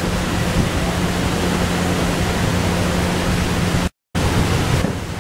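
Steady, loud hiss with a low hum underneath, broken by a brief dead gap about four seconds in.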